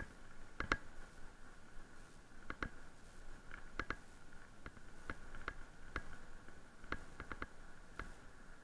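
Haibike electric mountain bike rolling over a gravel track: irregular sharp clicks and knocks from the bike rattling on the stones, one to three a second, over a faint steady high hum.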